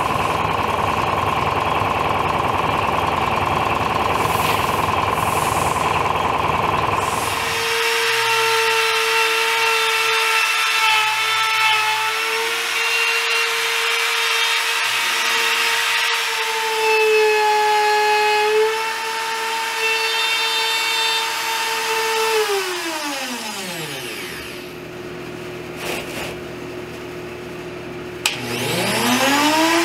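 Trim router with a flush-trim bit running at a steady high whine while trimming oak plywood flush with the cabinet edge. About two-thirds of the way through it is switched off and spins down with a falling whine, then it is started again with a rising whine near the end. A steady, noisier machine sound fills the first eight seconds or so.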